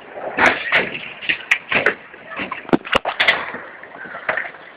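Kick scooters and boards clacking and knocking on concrete: a quick irregular run of sharp clacks over a steady hiss.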